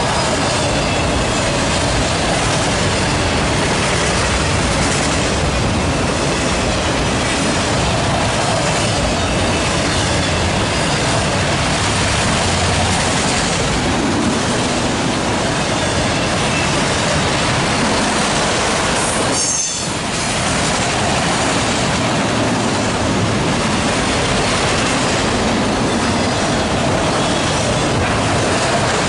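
Freight train of enclosed autorack cars rolling past: a steady rumble and clatter of steel wheels on the rails, with faint high squeals from the wheels.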